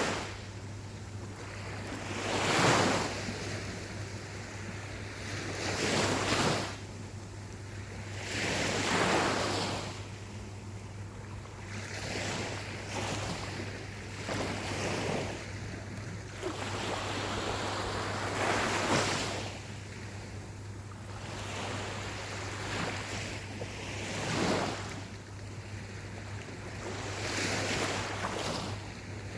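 Gentle ocean waves breaking and washing up the shore, a loud surge of surf every three or four seconds with a softer wash between.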